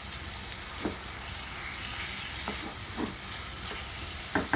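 Marinated chicken pieces sizzling as they fry in butter and oil in a pan, with a spatula stirring them and knocking against the pan a few times.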